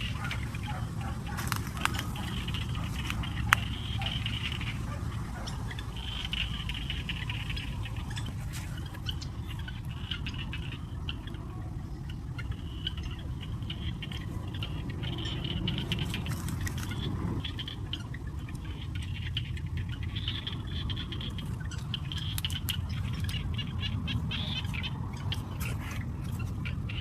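Outdoor ambience: a steady low rumble with high chirping that comes and goes in short patches, and scattered clicks and taps.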